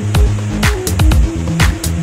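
Background electronic dance music with a kick drum about twice a second, a low bass line and crisp hi-hat-like hits.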